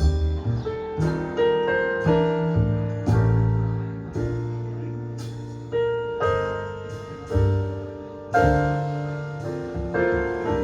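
Slow jazz ballad piano: struck chords and single notes ringing and fading one after another, from a recorded jazz track.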